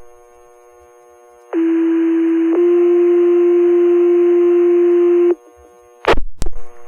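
Fire department two-tone sequential page over the dispatch radio: a steady tone of about a second, then a slightly higher, louder tone held for nearly three seconds, which alerts the volunteer firefighters' pagers to a call. Two sharp radio clicks follow near the end.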